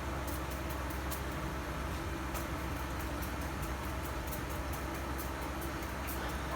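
Toilet tank refilling after a flush: water hissing and trickling steadily through the fill valve, over a steady low hum.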